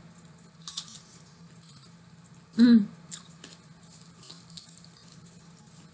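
Chewing a crunchy homemade corn tortilla nacho chip, with soft, irregular crunches scattered through. A short voiced 'mm' comes about two and a half seconds in, over a faint steady low hum.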